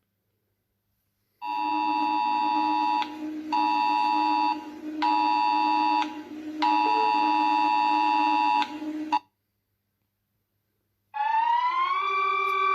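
Emergency alert warning tone: a steady electronic alarm of several stacked pitches over a low hum, sounding in four long pulses with short breaks before stopping. Near the end a different electronic tone starts, gliding in pitch like a siren.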